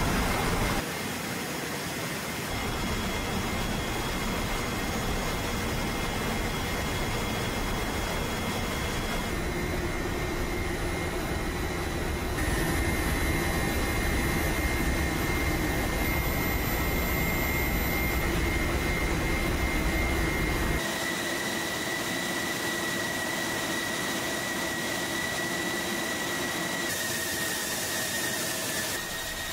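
Steady industrial noise of a steel strip processing line: a constant rush of blowers and motors with a thin high whine over it. The mix changes abruptly several times, now heavier and lower, now lighter and hissier.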